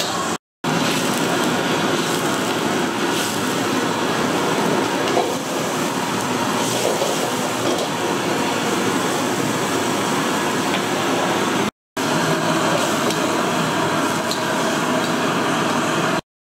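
Steady, dense cooking noise of a street-food stall, cutting out briefly three times.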